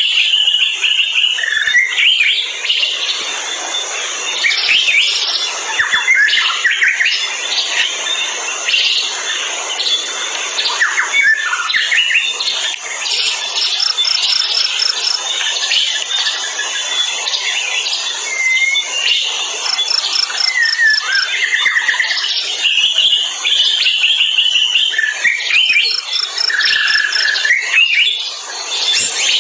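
Forest ambience: many birds chirping and calling over a steady high insect drone. Twice, around the middle, a short run of quickly repeated high notes.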